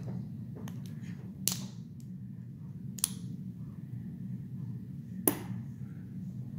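Hand tools working at the retaining C-clip of a euro cylinder lock being taken apart: three sharp clicks, each about one and a half to two seconds after the last, with a few fainter ticks before the first. A low steady hum underneath.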